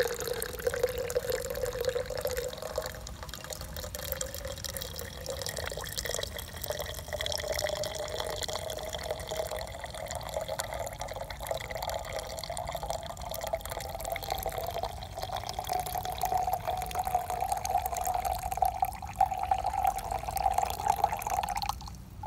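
Hot coffee pouring in a thin stream into a stainless steel thermos, the filling note rising steadily in pitch as the vessel fills. The pour stops just before the end.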